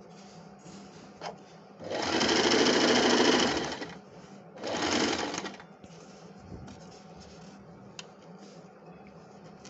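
Singer Promise 1409 electric sewing machine running in two short bursts, about two seconds and then about one second, as it stitches a gold cord onto a fabric border. A couple of small clicks come between the runs.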